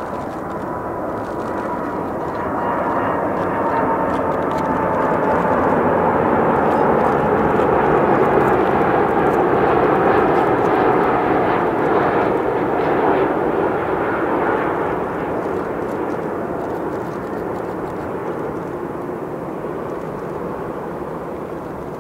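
Airbus A330-300 airliner's twin Rolls-Royce Trent 700 turbofans on a landing approach, growing louder to a peak about eight to eleven seconds in and then easing off as it goes by. A fan whine falls slowly in pitch as the jet passes.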